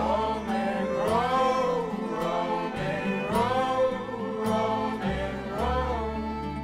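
Live acoustic folk music: a man singing a melody over a strummed nylon-string classical guitar, with an upright bass holding low notes underneath.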